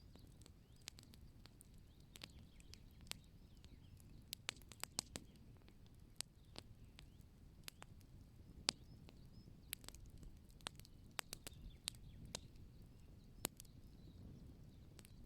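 Open fire crackling: irregular sharp pops and snaps, sometimes several close together, over a faint low rumble.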